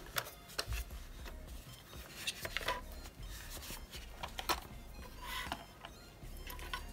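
Scattered clicks and rubbing of hard plastic as an SG906 Pro folding quadcopter's arms are swung open and the drone is handled and turned over.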